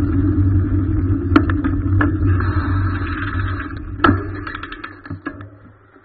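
Car running on the road, heard from inside the cabin: a steady low drone with a few sharp clicks, fading away about five seconds in.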